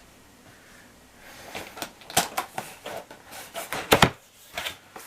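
Cardboard box and packaging being handled while it is opened: a run of sharp knocks, clicks and scrapes, the loudest knock about four seconds in.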